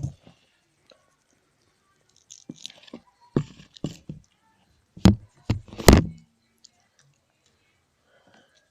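A series of sharp knocks and cracks: one at the start, a scattered group about two and a half to four seconds in, and the loudest few knocks around five to six seconds in.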